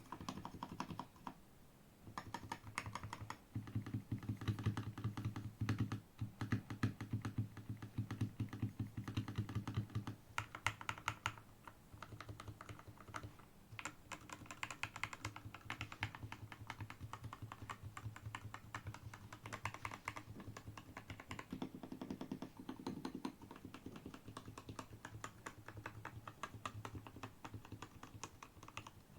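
Typing on an F84T 75% mechanical keyboard with Gateron G Pro Milky Yellow linear switches (50 gf) and XDA-profile keycaps: a continuous stream of rapid keystrokes, busiest and loudest from about two to ten seconds in.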